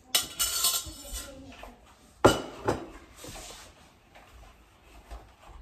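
A metal spoon scraping and clinking against the inside of a stainless steel pot as boiled elderberries are scooped out. One loud metal clank comes a little over two seconds in as the pot is set down, followed by a quieter rustle of cheesecloth being gathered.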